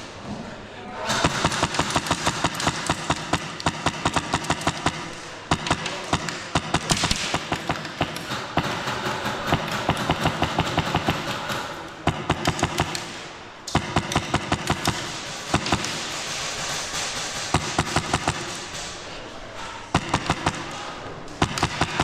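Airsoft guns firing in rapid bursts, a fast clatter of shots repeating many times a second, with louder close bursts coming every second or two.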